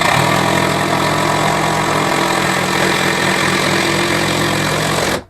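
Power drill/driver motor running at a steady speed for about five seconds, switching on and cutting off abruptly, as it works on a screw for the shelf mounting.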